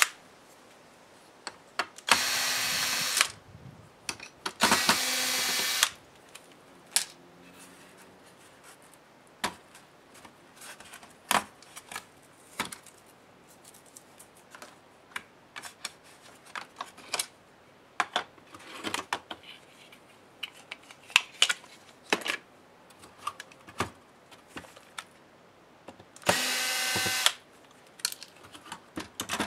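Cordless drill-driver backing out laptop screws in three short runs of about a second each, two close together early on and one near the end. Between the runs come scattered light clicks and taps.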